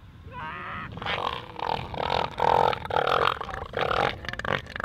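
Southern elephant seals calling: from about a second in, a run of loud, pulsing calls in several separate bouts.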